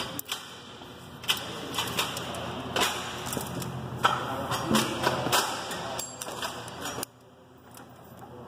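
Irregular sharp metallic clicks and taps of a screwdriver and a steel snap ring against a transmission input shaft as the snap ring is worked back into its groove, with handling rustle between the clicks; the sound drops away suddenly near the end.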